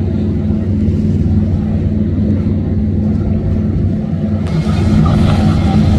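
Speedboat's outboard motor running steadily at speed, a low, even drone.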